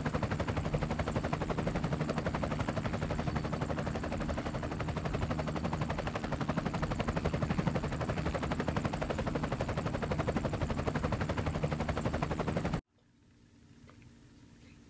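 A loud, very fast, steady rattling pulse that starts abruptly and cuts off suddenly near the end.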